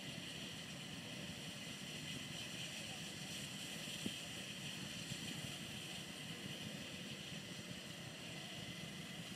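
Faint, steady outdoor background noise: a low rumble under an even hiss, with a single sharp click about four seconds in.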